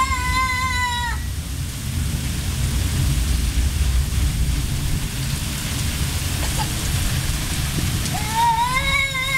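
Garden hose spray falling and pattering steadily, like heavy rain, with a strong low rumble underneath. A small child gives a long, held, high-pitched vocal call at the start that stops about a second in, and another begins near the end.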